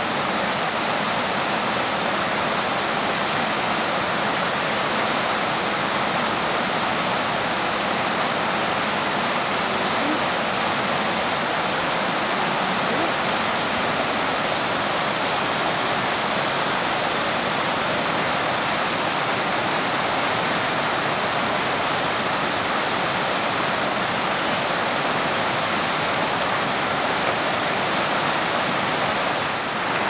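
Steady rushing of flowing river water, an even hiss with no breaks.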